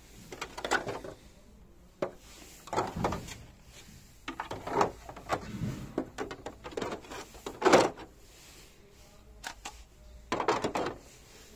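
Bosch D-tect 120 wall scanner being lifted out of its moulded plastic case insert and handled: a run of plastic knocks, scrapes and clunks with short pauses between, the loudest a sharp knock about two-thirds of the way in.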